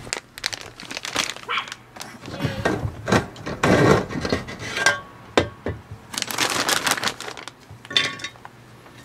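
A bag of wood chips rustling and crinkling, with clicks, knocks and scrapes of the electric smoker's plastic wood chip loader being turned and pulled out, as wood chips are added for smoke.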